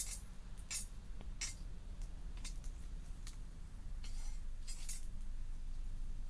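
Wood campfire crackling, with a handful of sharp, irregular pops over a low steady rumble.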